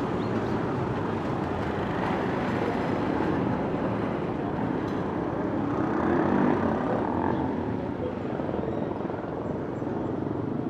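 City street ambience: a steady rumble of traffic with indistinct voices of passers-by.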